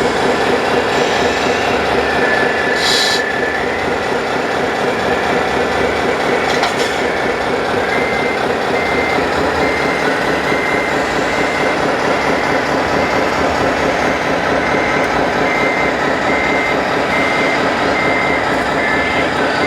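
Reversing beeper of an RC model truck, sounding about twice a second from about eight seconds in over a steady noisy background.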